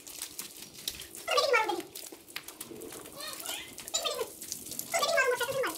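Young children's voices: several short, high-pitched calls and phrases about a second apart.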